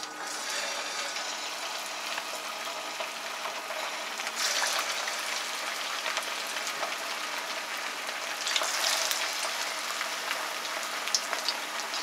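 Hot oil sizzling as egg-stuffed ground-beef balls deep-fry in a frying pan. The sizzle swells louder twice, about four and eight and a half seconds in, as more balls are lowered into the oil.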